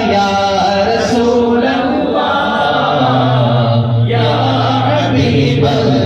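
A man singing a devotional naat into a microphone, amplified through a PA, drawing out long held notes in a melismatic style.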